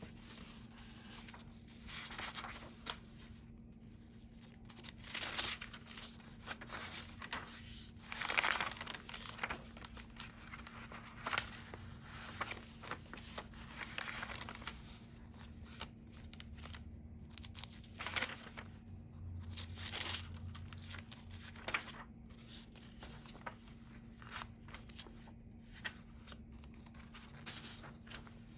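Pages of a handmade junk journal turned one after another by hand: irregular paper rustles and swishes from mixed paper and card pages, including a crumpled kraft-paper leaf. The loudest page turns come about 5 and 8 seconds in.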